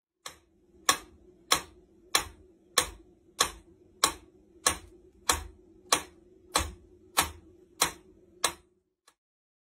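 Mechanical pendulum metronome ticking steadily, about one and a half ticks a second, then stopping near the end.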